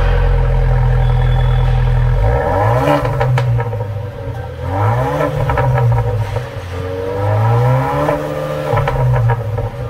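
Ford Bronco's 2.3L EcoBoost turbocharged four-cylinder through a Ford Performance exhaust, revved while parked: held at a steady high rev for about two seconds, then blipped several times, each rev rising and falling.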